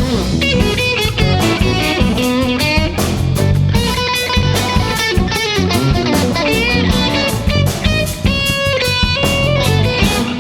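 Live jazz band playing, with an electric guitar soloing in quick runs and a few bent notes over bass guitar and drum kit.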